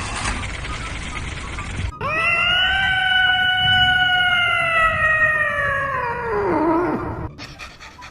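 An animal's single long howling call lasting about five seconds, starting abruptly, holding its pitch and then sliding down as it trails off. Before it, a couple of seconds of steady hiss that cuts off suddenly.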